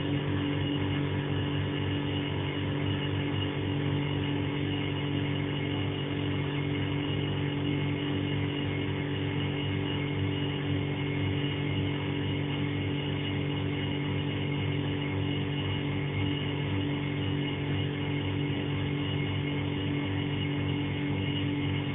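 Refrigerator running with a steady, unchanging hum made of several held tones and a low, fast-fluttering buzz; the tags call it a loud, noisy fridge.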